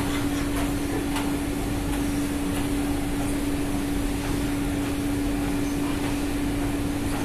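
Steady drone of shipboard machinery: one constant humming tone over an even rush of noise, with a few faint clicks.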